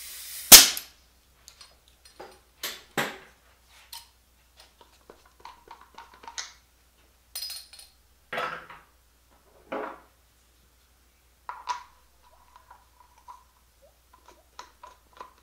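Devilbiss touch-up spray guns being handled and swapped: scattered clicks, clinks and knocks of metal and plastic parts. The loudest is a single sharp knock about half a second in.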